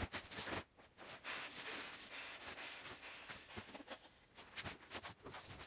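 Faint rustling and handling of an old Thermarest self-inflating sleeping mat: its nylon fabric and stuff sack being pulled out, shaken and unrolled, with a few light taps and clicks.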